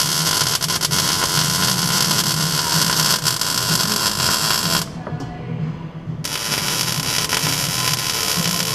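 Metalworking on a steel exhaust downpipe to fit an O2 bung: a loud, steady power-tool or welding noise. It stops for about a second and a half midway, then starts again.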